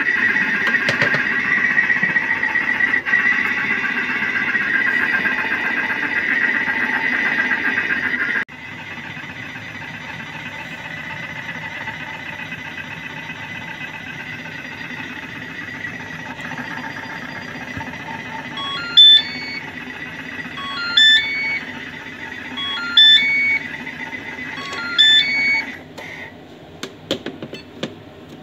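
Thermomix food processor running steadily. Its sound drops abruptly about a third of the way in, then continues more quietly. Near the end it plays its timer-finished signal, four short multi-note beep sequences about two seconds apart, and the motor stops.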